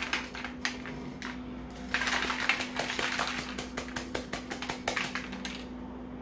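Wet soaked grain pattering and sliding out of a conical perforated metal strainer into an aluminium foil pan. The strainer is tapped by hand in quick runs of light metallic taps to shake the last grain loose.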